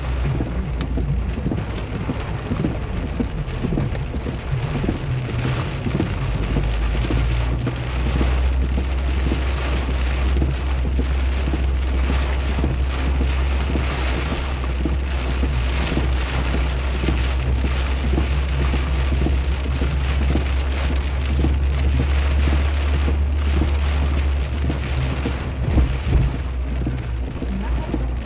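Rain pattering on a moving car, over the steady low rumble of the car driving.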